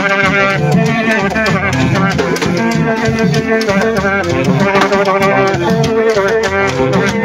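Gagá street band playing: large metal horns blow held, overlapping notes over a steady, dense shaking of rattles.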